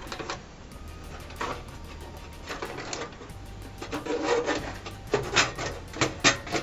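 A computer motherboard being pushed and wiggled into a tight-fitting case: rubbing and scraping with scattered clicks and knocks, which come thicker and louder over the last couple of seconds.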